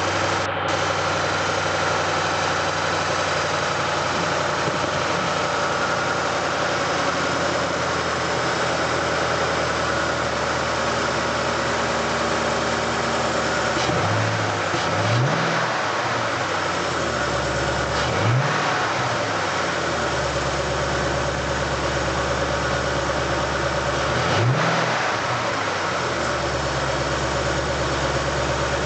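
2007 Ford Mustang GT's 4.6-litre V8 idling, blipped three times with brief rises and falls in pitch. It carries the noise of a failing water pump.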